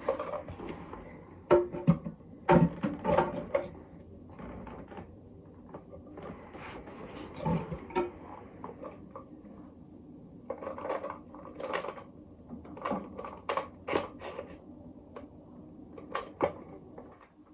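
Irregular clicks, knocks and clatter of plastic toilet cistern parts and hand tools being handled while a new fill valve and siphon are fitted.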